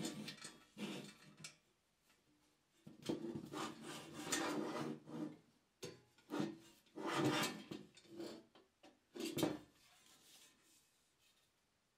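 Rusted, holed Austrian M17 steel helmet being handled and turned over on a wooden tabletop: irregular bursts of scraping and rubbing that die away in the last couple of seconds.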